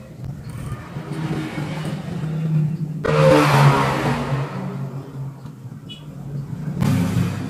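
Motor vehicle engine noise passing by, swelling to its loudest about three seconds in and fading, then rising again near the end.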